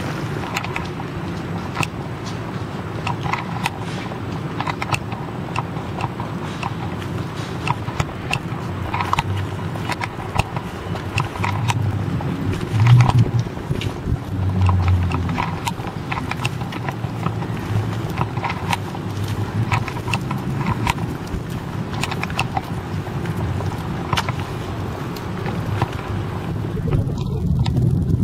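City street ambience: a low traffic rumble with scattered clicking footsteps on paving stones.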